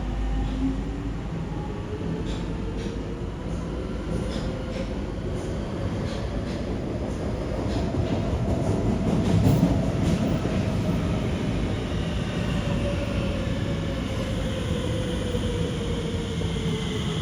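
Alstom Movia R151 metro train pulling in over a steady rumble of wheels on rail. Its SiC-VVVF traction inverter gives a whine that rises and then falls in pitch as the train slows. Clicks of wheels over the track come in the first half, and the train is loudest about midway.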